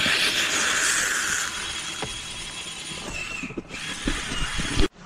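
Thermite charge of a CAD (exothermic) weld burning in its graphite mold: a loud hissing rush as the charge flares, fading over a few seconds into crackling. It cuts off suddenly near the end.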